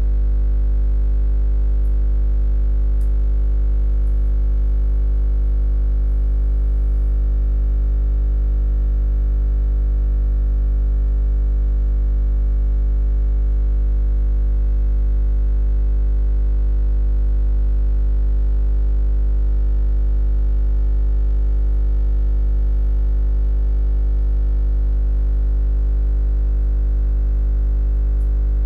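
A steady low electrical hum with many evenly spaced overtones, strongest in the deep bass.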